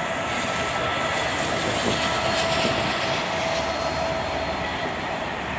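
Train of the steam locomotive 60163 Tornado and a diesel locomotive hauling coaches, passing slowly: a steady rumble of wheels on rails with a steady engine drone and a thin steady whine.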